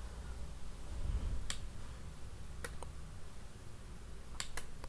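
A computer mouse being clicked: four sharp clicks, spaced out, the last two close together near the end, over a faint low hum.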